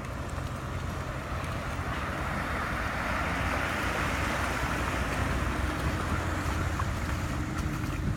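A vehicle moving, a steady low rumble with a rushing noise that swells in the middle and eases off toward the end.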